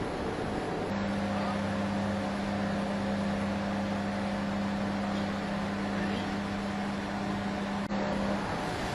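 Steel mill machinery noise: a steady rushing hiss with a low, even machine hum that starts abruptly about a second in and stops shortly before the end.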